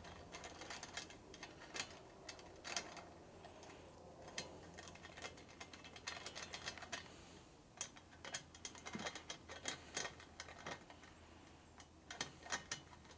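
Faint, irregular light metallic clicks and ticks, coming in small clusters, from spoke nipples being turned with a screwdriver on a freshly laced, stainless-spoked motorcycle wheel that is binding.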